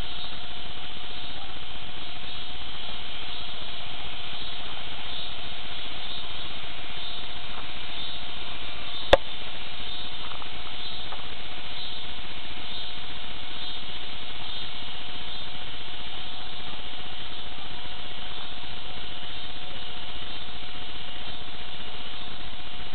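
Steady hiss with a faint constant tone underneath, and a single sharp click about nine seconds in.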